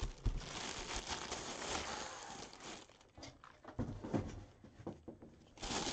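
Clear plastic bag crinkling as it is handled around a football helmet, with a few soft knocks in between. The crinkling is busiest for the first few seconds, eases off, and starts again near the end.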